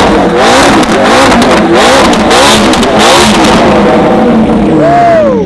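McLaren engine revving through a top-mounted straight-pipe exhaust: repeated quick blips rising and falling in pitch, with sharp pops mixed in. Near the end the revs fall away in one long drop.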